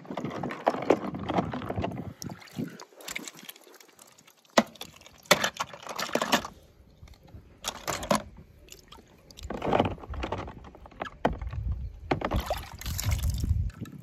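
Toy cars dropping into a pool of water: a run of separate splashes and sloshing, with sharp knocks between them.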